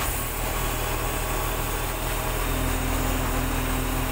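Sany 25-ton crane's diesel engine running steadily while the crane works a lift. A steady higher tone joins about two and a half seconds in.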